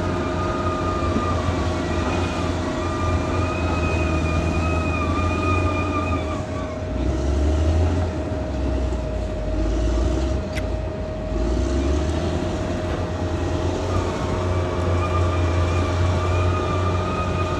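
Caterpillar D6R XL bulldozer working: its diesel engine runs steadily with a low rumble, under a wavering high whine that drops away for several seconds in the middle and comes back.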